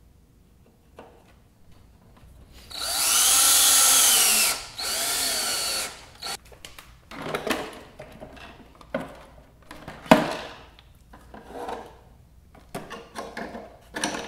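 A power drill runs twice, a longer burst about three seconds in and a shorter one right after, its pitch rising and falling as it spins up and slows. After that come scattered knocks and clunks of bottles and parts being handled and set down in a wooden barrel.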